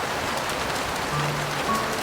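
Steady heavy rain, with a few soft piano notes sounding about a second in.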